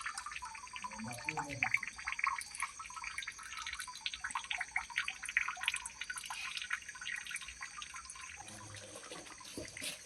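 Water dripping and pattering irregularly after rain, a dense run of small drips and ticks, with a steady high-pitched whine behind.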